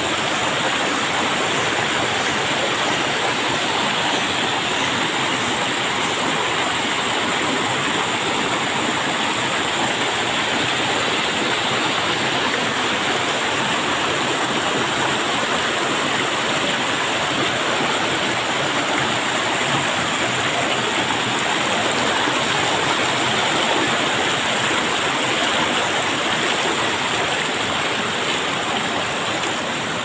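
Shallow, rocky mountain stream rushing and splashing over boulders and stones: a steady, even rush of running water.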